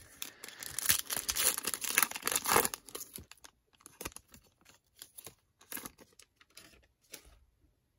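Foil wrapper of a Panini Select football card pack crinkling and tearing as it is ripped open, for about three seconds. This is followed by a few faint rustles and clicks as the cards are slid out and handled.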